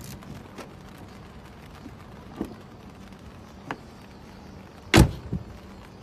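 Freshly cut car key turning in a car's door lock cylinder: a few faint clicks, then a loud clunk about five seconds in and a smaller one just after as the lock works, a sign that the new key operates the lock.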